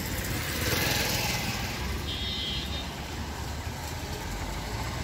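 A Maruti Suzuki Swift's engine running as the car pulls away, with a steady low rumble throughout.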